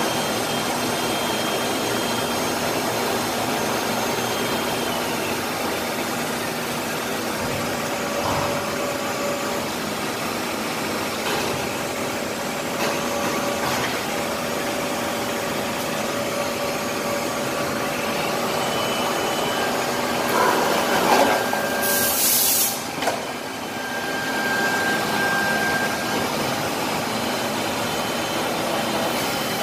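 Rotary shoe-making machine and factory machinery running with a steady mechanical drone and faint steady whines. A few clunks come about two-thirds of the way through, and a short, loud hiss comes just after them.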